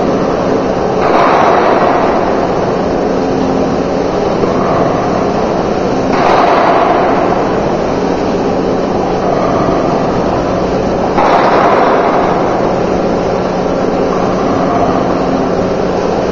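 Running machinery of a fertilizer production line, rotary drums and belt conveyors, making a steady mechanical din with a constant low hum. A louder swell of noise comes in suddenly about every five seconds.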